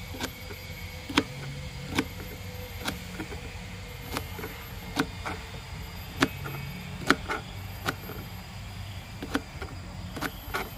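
A run of sharp knocks at irregular intervals, about one a second, from camp cooking utensils at work, over a steady background of insects.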